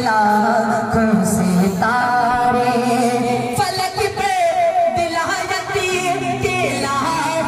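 A man singing a naat into a microphone, holding long, ornamented notes that waver up and down in pitch.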